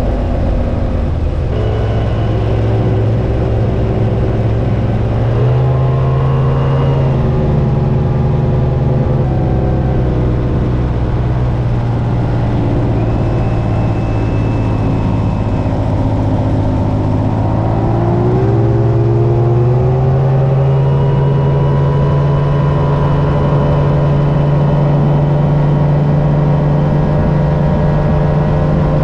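2007 Mercury 250 hp 3.0-litre EFI V6 two-stroke outboard running under way, its note rising twice as the throttle opens, about five seconds in and again near eighteen seconds, with a faint high whine above it.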